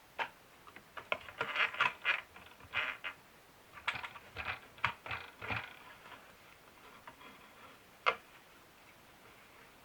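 Irregular clicks and taps from a small plastic toy sewing machine and its fabric being handled, some in quick clusters and others single, with no steady motor run.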